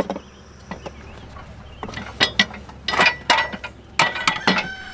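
Irregular knocks and clunks of a replacement tractor seat being shifted and turned around on its mount on a Ford 3000 tractor, loudest and most frequent in the second half.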